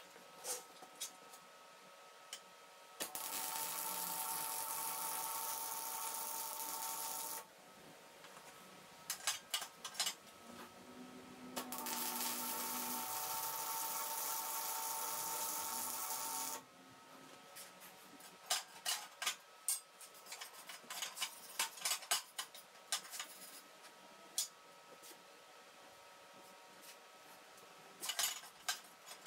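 MIG welder arc crackling and hissing steadily with a hum through two welds on steam pipe bends, the first about four seconds long and the second about five, while the pipes are tacked together into a 4-into-1 collector. Between and after the welds come scattered light metal clinks and knocks as the parts are handled on the steel table.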